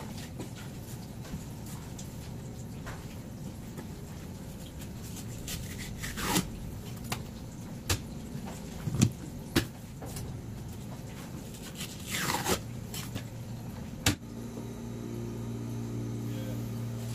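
Scattered light knocks and two brushing swipes from handling work at a plastic cutting board, over steady room noise. Past the middle the background changes to a steady low hum.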